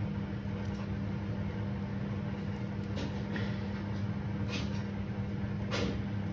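Steady low machine hum, as from a running kitchen appliance, with a few faint soft ticks as fingers press and spread sticky sushi rice over a nori sheet.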